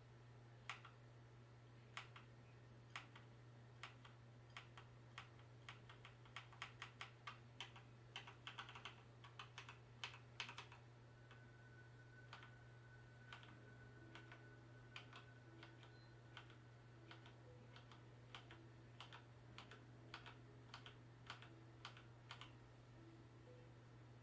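Faint clicks of computer keyboard keys being pressed. Single keystrokes come about once a second at first, then a quicker run of typing from about a quarter to under halfway through, then spaced keystrokes again.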